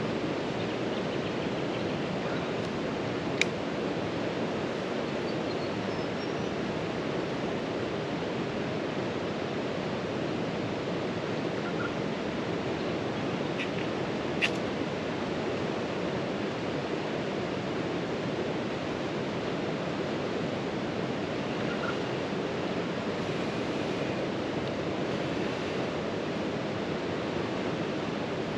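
Steady rushing of a river running high after recent rain. Two short sharp clicks cut through it, about three seconds in and again near the middle.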